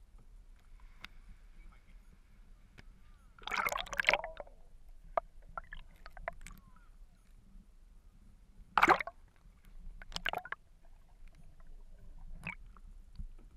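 Water splashing and gurgling over a waterproof action camera as it dips under the sea surface and comes back up, in several short loud splashes about 4, 9 and 10 seconds in, with sloshing and small clicks between.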